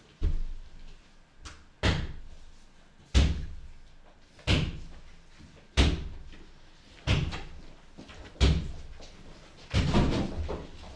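A slow, even series of heavy thuds, about one every 1.3 seconds, each dying away with a ringing tail, eight or nine in all.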